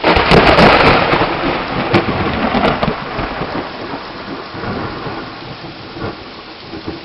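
Loud thunder from a close lightning strike: a sudden crack with sharp crackles in the first second, breaking into a rumble that fades over several seconds. Steady rain falls underneath.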